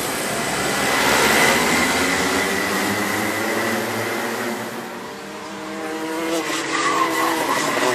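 A pack of Rotax two-stroke racing karts going by, loudest about a second in; after a dip near the middle, a single kart's engine is heard with its pitch rising and falling.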